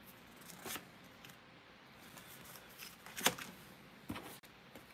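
Trading cards being handled and set down on a desk mat: a few soft taps and rustles, the loudest about three seconds in.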